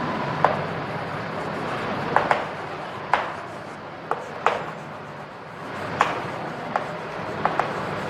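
Chalk writing on a blackboard: sharp chalk taps and scratches at irregular moments, roughly every second, over a steady background hiss.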